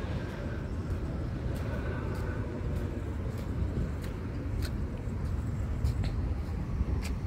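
Open-air parking-lot ambience: a steady low rumble of wind on the phone microphone and distant traffic, with a few faint ticks.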